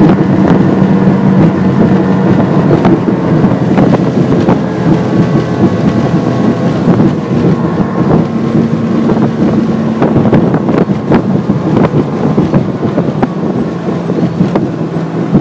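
Evinrude 115 HO G2 three-cylinder two-stroke outboard running steadily at high speed, pushing the boat at about 70 km/h. Wind buffets the microphone, and the hull knocks over chop many times.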